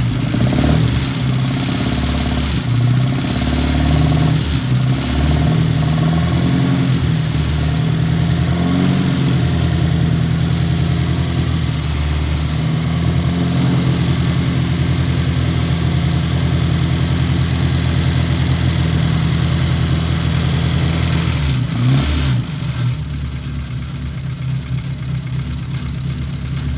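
Classic Austin Mini Cooper's A-series four-cylinder engine running just after finally catching from a no-start, revved unevenly at first and then held at a steady fast speed. About 22 seconds in it drops back to a slower, quieter idle.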